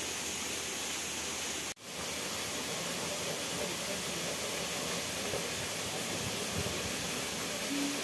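Steady rush of a shallow stream running over rocks, cutting out for an instant about two seconds in.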